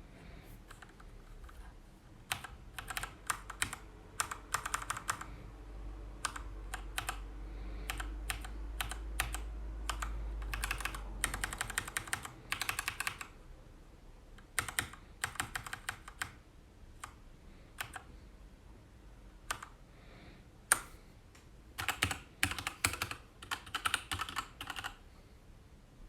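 Keychron K2 mechanical keyboard being typed on: single key clicks and short flurries of rapid keystrokes, separated by brief pauses. A low hum underneath stops about halfway through.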